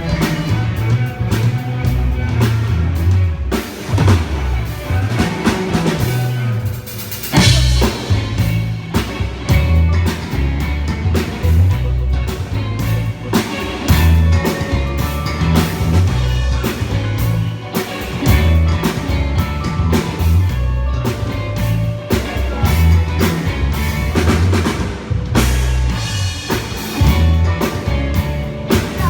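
A band playing a song, with drum kit, snare and bass drum driving a steady beat under a repeating low bass line.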